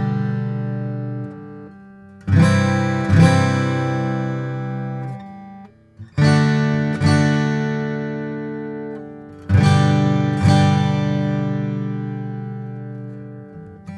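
Martin D-45 dreadnought acoustic guitar, Adirondack spruce top over Madagascar rosewood back and sides, strummed in slow full chords. Each chord is struck twice about a second apart and left to ring out and fade, three times over.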